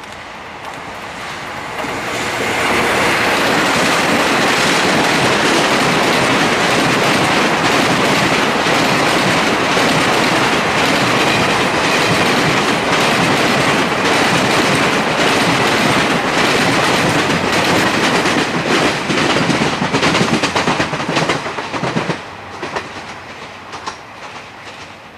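A train passing close by. Wheel and rail noise builds over the first couple of seconds and stays loud for about fifteen seconds, then turns into a rapid clickety-clack over the rail joints before dying away near the end.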